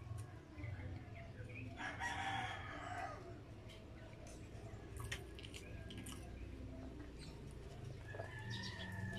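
A rooster crowing once, about two seconds in, and a drawn-out held call near the end. Soft clicks come from a paper drink cup and its plastic lid being handled.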